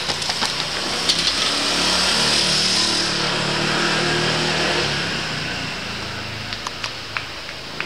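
Running shoes slapping on cobblestones as runners pass close. Then a motor vehicle passes unseen, its engine swelling for a few seconds and fading away.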